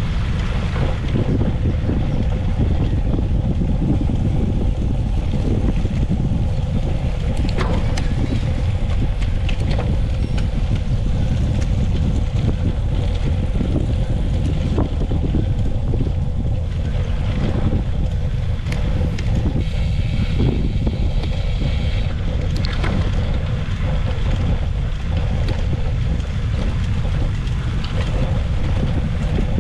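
Steady wind rush on the microphone of a camera carried by a cyclist riding a track race, with a faint steady hum underneath.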